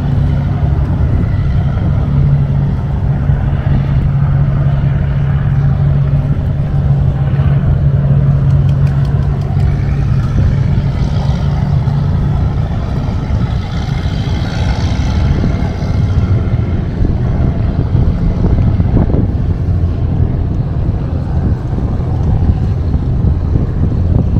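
Boat engine running: a steady low hum for about the first half, then a rougher low rumble with a rushing noise.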